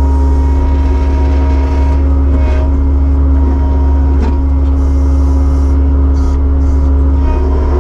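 Kubota SVL75-2 compact track loader's diesel engine running steadily under work, a loud constant low hum with a few short knocks.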